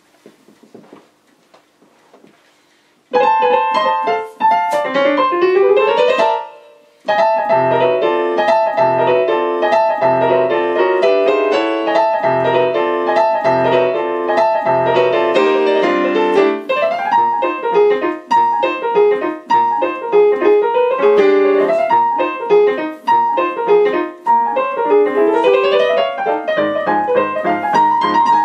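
Digital piano playing an upbeat traditional-jazz novelty piece, starting about three seconds in after a few faint knocks. A quick descending run and a short break come near the sixth second, then the playing runs on with regular bass notes under a busy right-hand melody.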